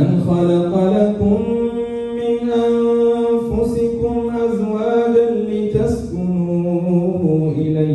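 A man's voice chanting a religious recitation into a microphone, in long held melodic notes that step up and down in pitch between phrases.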